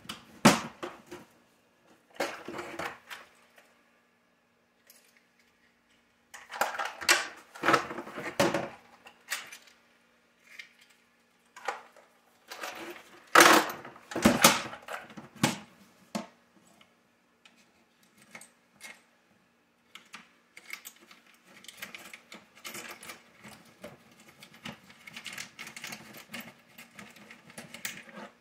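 Tools and small hard parts clattering and clicking as they are handled and rummaged through, in irregular bursts with pauses between. A faint steady hum sits under it.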